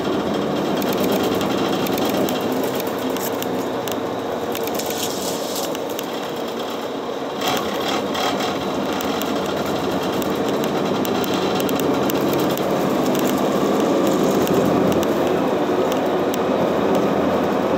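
Steady running noise of a city bus heard from inside the cabin, with a continuous rattle of the body and windows. A single sharp knock sounds about halfway through, and the noise grows a little louder after it.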